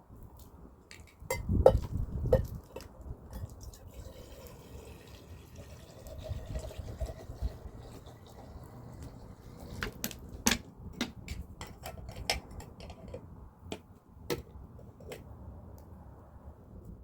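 Light clicks and knocks, scattered irregularly and a few of them sharper, over a low rumble.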